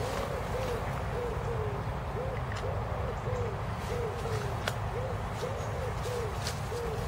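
Repeated short hooting calls from an animal, soft arched notes about two a second in small groups, over a steady low rumble.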